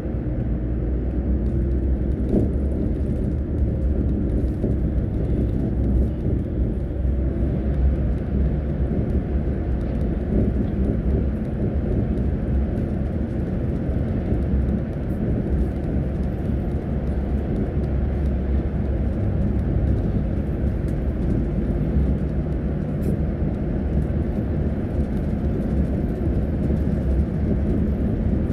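A bus's engine and road noise heard from inside the cabin while cruising on a highway: a steady, loud low drone.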